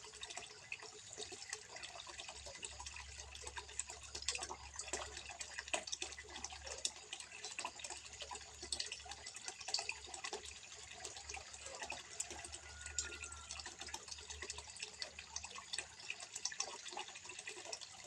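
Water trickling into a small fish pond: a steady, dense patter of small drips and splashes.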